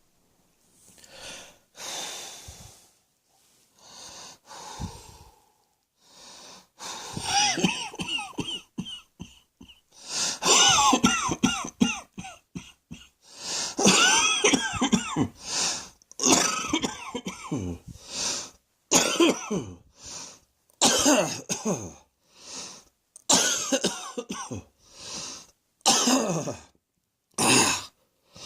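A person coughing hard in repeated fits, with wheezing, pitched drawn breaths between the coughs. The first few seconds hold only softer breaths; the coughing starts in earnest about seven seconds in and keeps coming in bursts with brief pauses.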